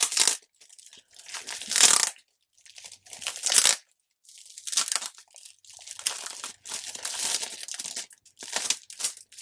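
Plastic packaging of a scrapbook paper pad being crinkled and torn open, in several short bursts and then a longer stretch of rustling, its adhesive seal hard to pull apart.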